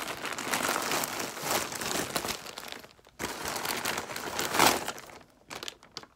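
Plastic shipping mailer and plastic-wrapped clothing packets crinkling and rustling as they are handled and pulled out, with a short lull about three seconds in and uneven bursts near the end.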